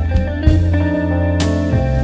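Background music: a guitar-led instrumental tune over a steady bass line, with a drum hit about half a second in and a cymbal-like crash near the end.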